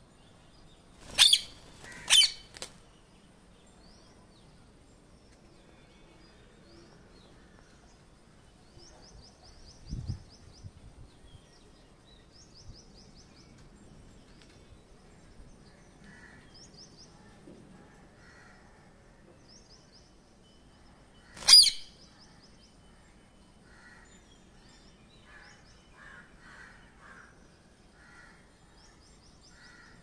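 Rose-ringed parakeet giving loud, short screeches: two about a second apart near the start and one more about two-thirds of the way through. Faint high chirping in between, and one low thump about a third of the way in.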